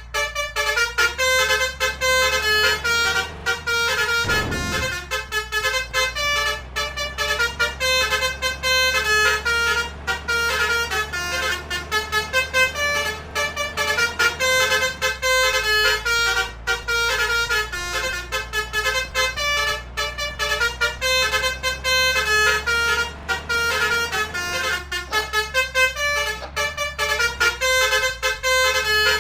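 Basuri multi-tone musical horn ('om telolet' horn) playing a fast tune, its notes changing several times a second without a break. A vehicle engine drones steadily beneath it.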